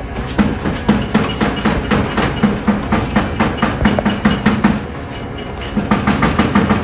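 Rapid, repeated knocking and pounding on a front door, several blows a second. It eases briefly about five seconds in, then starts again.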